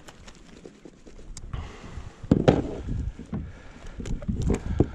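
Short knocks and rustles of a snapper being handled on a plastic kayak, the loudest a cluster of knocks about two and a half seconds in, with more near the end, over a faint hush of wind and water.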